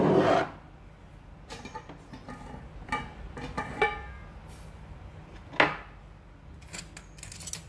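Glass jar of cocoa powder with a stainless steel lid being handled on a counter: a loud scraping rub as it is gripped, then several light clinks with a brief ring, one sharp knock, and a few quick clicks near the end.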